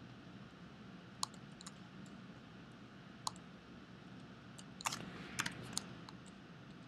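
Scattered clicks of a computer mouse and keyboard over a low steady hum: single clicks about a second in and about three seconds in, then a quick run of several clicks near the five-second mark.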